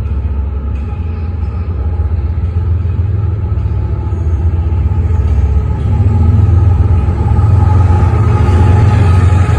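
Union Pacific freight diesel locomotives approaching along the track: a steady low engine rumble that grows louder about six seconds in as they draw near.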